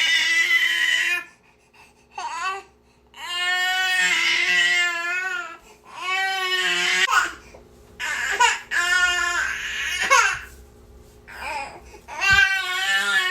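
Baby crying in repeated wailing bouts of about a second or two each, with short breaths between them.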